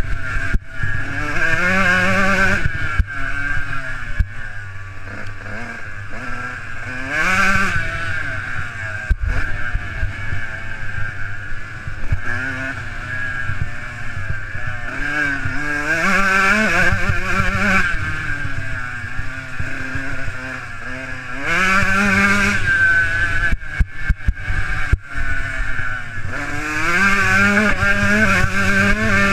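Motocross bike engine recorded from the rider's helmet, revving up in rising sweeps and dropping back again and again as it shifts through the gears and throttles on and off, over a steady rush of noise.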